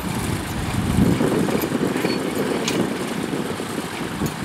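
A motor engine running steadily, a low, even rumble.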